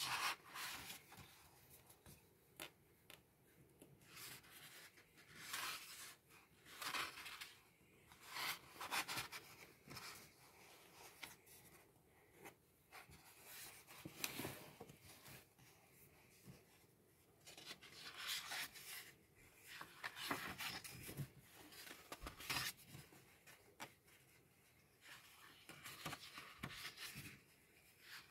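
Pages of a paperback comic and puzzle book being flipped and turned by hand: soft paper rustles and swishes at irregular intervals, with short quiet gaps between.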